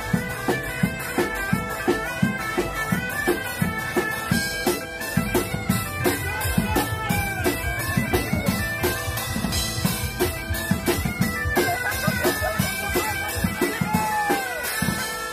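Bagpipe music: a melody played over steady held drones, with a steady drum beat of about two hits a second.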